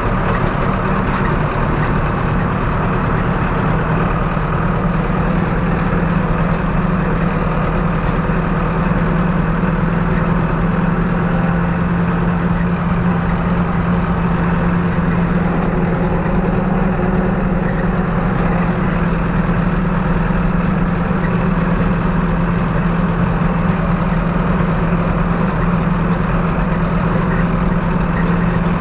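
Zetor 6745 tractor's four-cylinder diesel engine running steadily with an even, unchanging drone.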